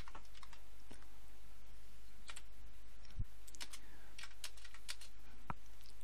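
Computer keyboard being typed on: a run of faint, irregular key clicks over a steady low hum.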